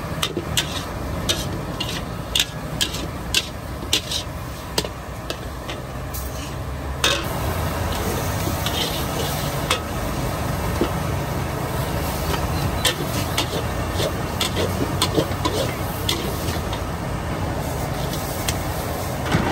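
Food sizzling in a hot pan while metal utensils tap and scrape against it in quick, irregular clicks, over a steady low hum.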